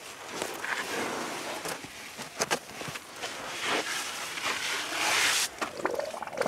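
African elephant calves moving and playing against each other: rustling and scuffing with a few knocks, and a short, loud rushing hiss about five seconds in.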